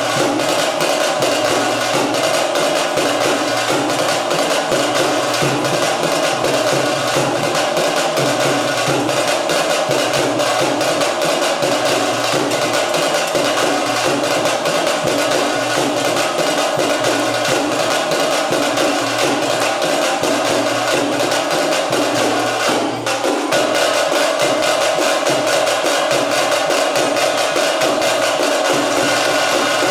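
Veeragase folk-dance music: fast, dense drumming with a sharp clicking beat, playing steadily, with a brief break about 23 seconds in.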